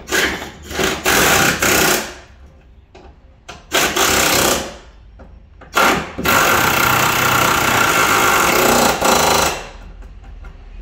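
Hand-held pneumatic air tool on an air hose, run in three bursts: about two seconds, then about a second, then a longer run of three to four seconds.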